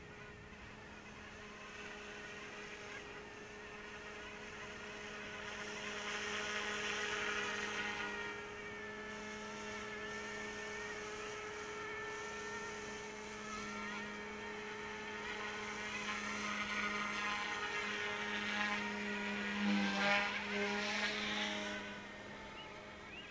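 Small electric RC helicopter with a brushless tail motor flying, its motor and rotors giving a steady whine that swells twice as it comes closer, about a third of the way in and again near the end.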